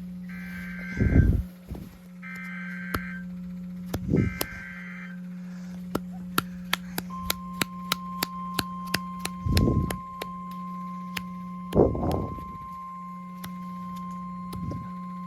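Emergency Alert System SAME header: three short bursts of warbling data tones, then the single steady 1050 Hz NOAA Weather Radio alert tone that starts about seven seconds in, introducing a severe thunderstorm warning. Under it run a steady low hum, a run of sharp clicks and a few low thumps, the thumps being the loudest sounds.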